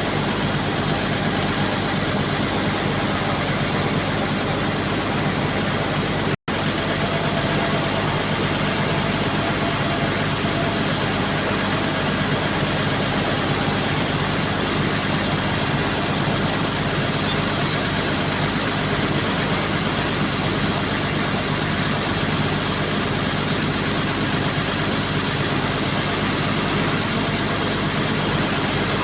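Bulldozer's diesel engine running steadily at an even speed. The sound cuts out for an instant about six seconds in.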